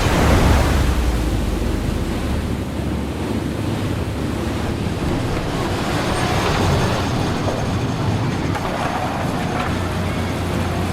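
Sea surf washing onto the shore with wind buffeting the microphone. A wave surges loudest about half a second in, then the wash runs on steadily.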